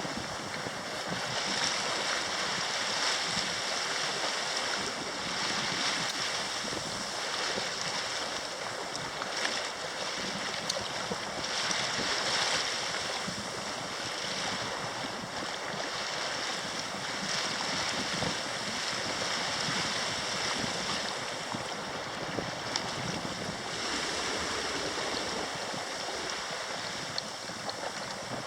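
Steady rush of wind and sea water aboard a sailing yacht, swelling and easing gently, with wind buffeting the microphone.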